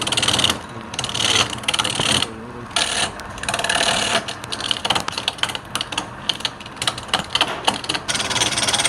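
Turning tool cutting wood spinning on a lathe: a hissing scrape that comes and goes in short passes as the tool engages and lifts. A rapid run of ticks in the middle stretch.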